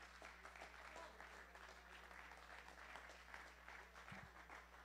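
Faint, scattered hand clapping from a small congregation, over a low steady hum.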